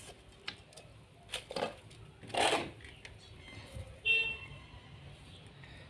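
Metal spatula scraping cooked greens out of a metal wok into a steel plate: a few short scrapes, the loudest about two and a half seconds in. A short high-pitched tone sounds about four seconds in.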